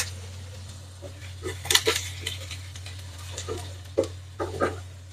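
A spoon clinking and scraping against a frying pan in irregular knocks, the loudest a little under two seconds in, as onions and green chillies are stirred in oil.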